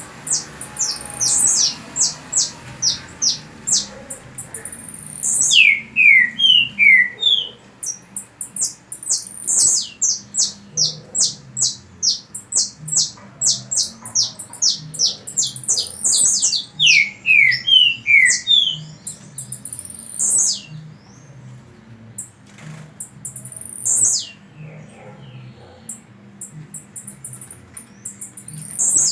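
Birds chirping and singing: rapid runs of short, very high chirps, twice broken by a phrase of four or five falling whistled notes, with the calling thinning out to a few single chirps in the last third.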